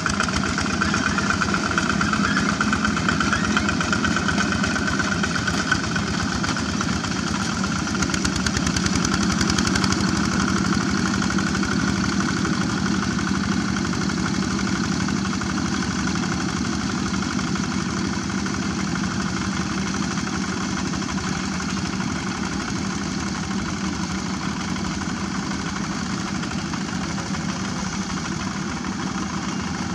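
Single-cylinder Kubota diesel engine of a two-wheel walking tractor running steadily as it drags a mud-ripping and levelling implement through a flooded rice paddy. It grows slightly quieter toward the end.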